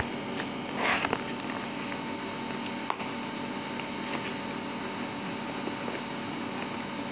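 Steady background hiss, with a brief rustle of a clear plastic zip-lock bag being handled about a second in and a single sharp click near three seconds.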